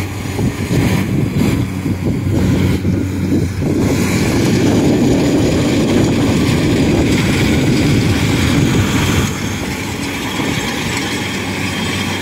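Kubota DC-70 Plus combine harvester's diesel engine running steadily as the machine harvests rice. It gets a little quieter from about nine seconds in.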